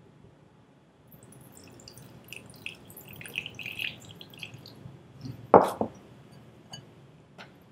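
Thin stream of water poured into a glass bowl of raw chicken, trickling and dripping for a few seconds. It is followed by a single loud knock and a couple of faint clicks.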